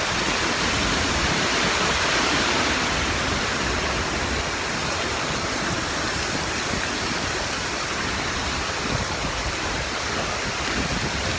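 Hurricane wind and rain: a steady rushing noise that holds without a break.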